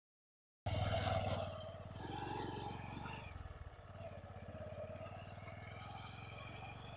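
An engine running at a steady low pitch, cutting in suddenly about half a second in, loudest for the first second, then lower and steady.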